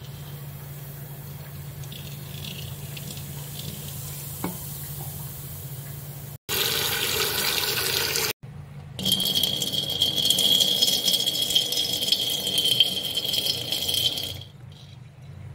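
Tap water running into a steel sink and over an aluminium pan, in two loud stretches broken by sharp cuts, the second with a steady high ring in the splash. Before that, a quieter stretch with a low steady hum.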